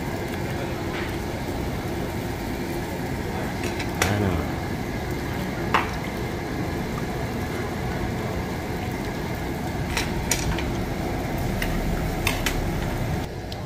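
Meat sizzling on a wire-mesh charcoal tabletop grill over a steady hiss, with a few short, sharp clinks of utensils and dishes.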